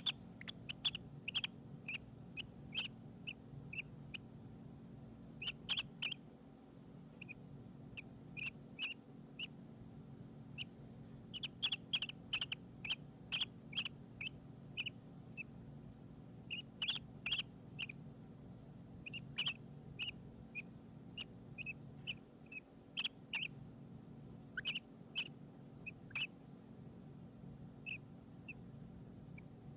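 Hand-fed baby peach-faced lovebirds peeping softly as they settle down to sleep: short, high chirps in irregular little clusters with brief pauses between, over a steady low hum.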